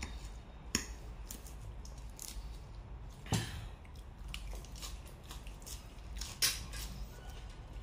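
Mealtime tableware sounds: a fork and plates clinking and tapping, with three louder knocks spread through, over a low steady hum.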